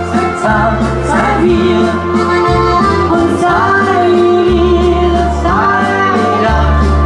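Live dance music from a keyboard-and-vocal duo: a woman singing into a microphone over arranger-keyboard accompaniment with a melody and a bass line that steps from note to note.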